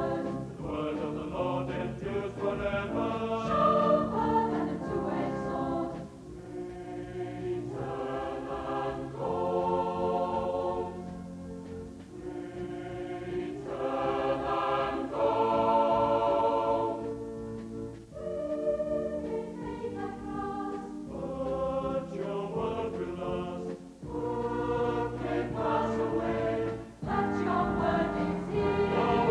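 Mixed youth choir singing, phrase after phrase with brief dips in loudness between them.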